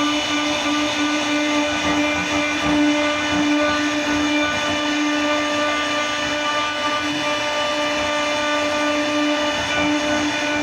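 CNC router spindle running with a steady whine.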